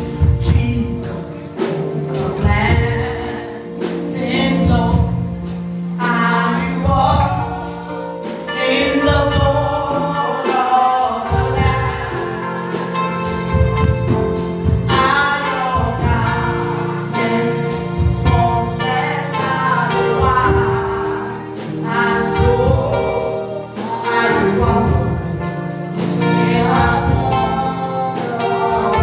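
Gospel song: singing voices over instrumental backing with sustained low notes and a steady beat.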